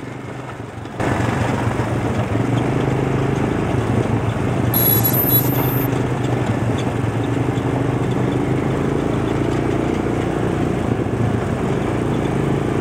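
Quad bike (ATV) engine running steadily under way on a dirt road, heard from on board, with road and wind noise; it gets louder about a second in.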